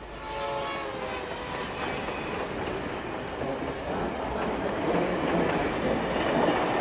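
Railway carriage running on the track: a steady rumble and rattle of wheels on rails, growing louder a few seconds in.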